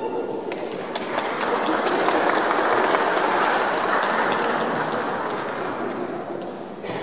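Audience clapping, building over the first few seconds and then slowly dying away.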